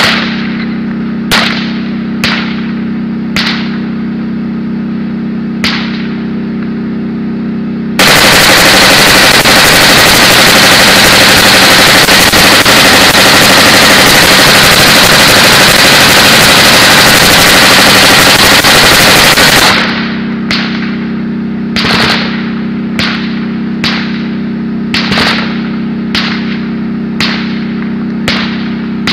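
A tank's engine runs steadily beneath scattered single gunshots. About eight seconds in, a continuous, distorted stretch of close machine-gun fire drowns everything for some twelve seconds. It then stops abruptly, and the scattered shots return over the engine.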